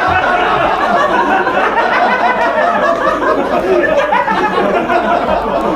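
Live audience laughing together, a long unbroken wave of laughter from many people in reaction to a joke's punchline.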